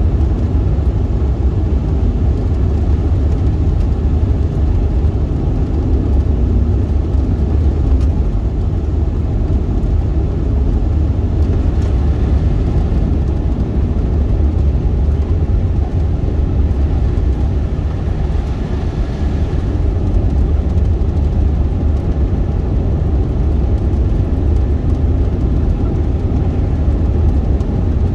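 Steady low rumble inside the cabin of a 2001 Suzuki Swift with a 1.3-litre four-cylinder, cruising at an even speed: engine and tyre noise on a slushy, snow-covered road.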